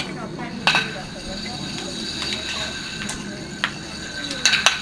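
Shuffleboard discs sliding down the concrete court with a low rumble, and knocking against other discs in sharp clacks: one about a second in and a quick cluster near the end. Faint voices in the background.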